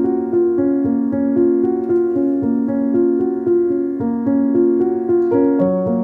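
Background music: a calm keyboard piece of sustained notes and chords, changing about twice a second at an even level.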